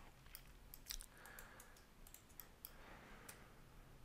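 Near silence with faint, irregular clicks of a computer mouse and keyboard being worked.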